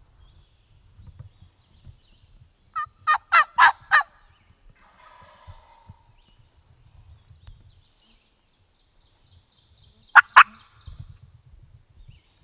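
Wild turkey gobblers gobbling: a loud rattling gobble about three seconds in and another short loud gobble near ten seconds. Faint high trilling songbird notes come in between.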